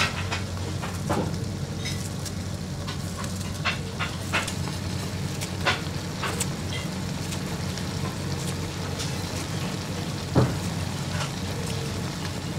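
Braised fish sizzling steadily in a pot as the sauce cooks down, with scattered clicks and taps of utensils and a sharper knock about ten seconds in.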